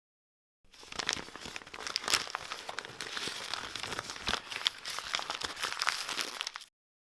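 Crumpling and crinkling: a dense run of small crackles and sharper snaps that starts abruptly just under a second in and cuts off suddenly near the end.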